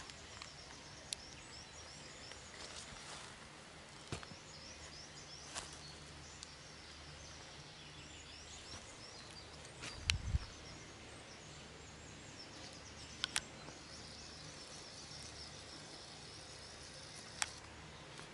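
Outdoor ambience: small birds chirping faintly and repeatedly over a steady low background hum. There are a few sharp clicks, and a low bump about ten seconds in as the camera is carried along.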